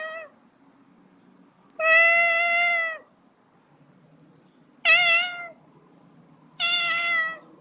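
Domestic cat meowing: three separate meows, the first the longest at about a second, after the tail of another at the very start.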